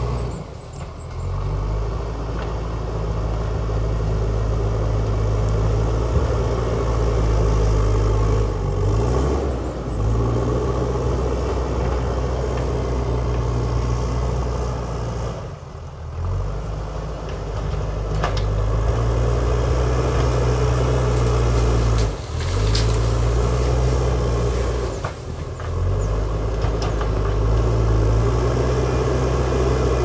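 JCB backhoe loader's diesel engine running hard as the front bucket pushes soil and boulders. The engine note sags and picks up again several times, with a few sharp knocks of rock.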